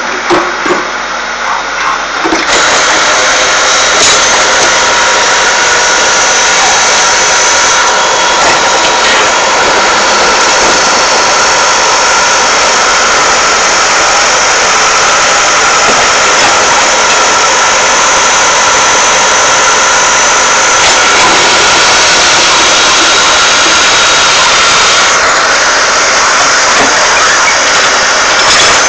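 Backhoe loader's diesel engine running loud and steady, the sound filling out about two and a half seconds in and then holding even.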